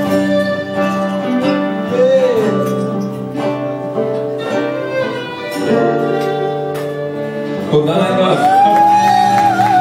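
Live acoustic band music with strummed acoustic guitars and singing. About eight seconds in it gets louder, with a high, wavering held note over the chords.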